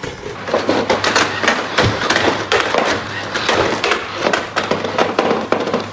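Robot vacuum stuck, knocking and rattling rapidly and irregularly over the steady hum of its motor.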